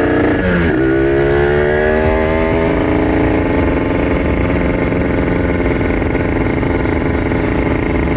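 Kawasaki Ninja RR 150 two-stroke engine at full throttle: its pitch climbs, drops sharply at a gear change about half a second in, climbs again, then holds high. Wind rushes on the microphone throughout.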